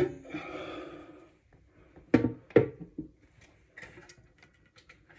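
Handling knocks: one sharp click at the start, two thunks about two seconds in a half-second apart, then a few light ticks.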